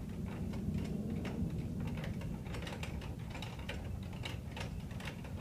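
Light, irregular clicking and ticking of a hand-set wooden kinetic sculpture: rods, discs and homemade wire springs knocking and rattling as the piece oscillates. The clicks come more thickly about halfway through.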